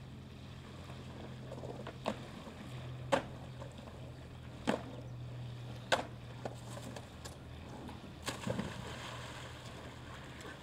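Skateboard on a wet concrete ledge: a handful of sharp clacks from the wheels and board, about a second apart, over a steady low hum.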